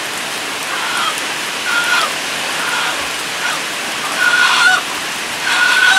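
Steady rain falling on wet ground, with a series of short, level-pitched honking calls that get louder toward the end.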